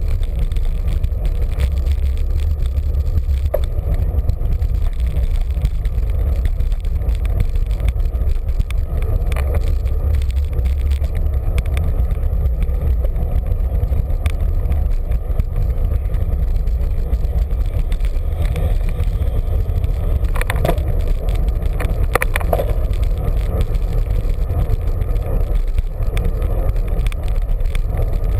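Steady rumble of wind and road noise while riding a bicycle along a city street, picked up by a bike-mounted camera. A couple of brief sharp clicks come about two-thirds of the way through.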